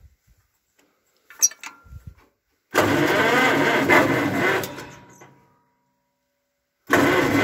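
A few light clicks, then the John Deere 420 crawler's two-cylinder engine running loudly for about two seconds before fading away. The engine comes back in abruptly near the end.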